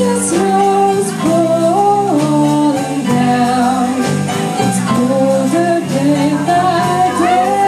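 Live band playing a song: a woman singing a melody over electric guitar, bass and drums.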